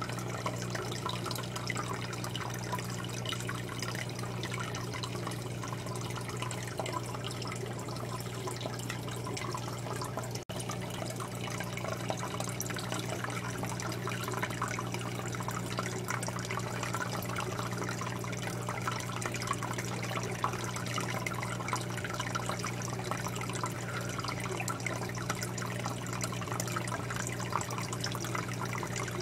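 Aquarium filter water trickling and splashing steadily into the tank, over a steady low hum from the filter or pump motor. The sound drops out for an instant about ten seconds in.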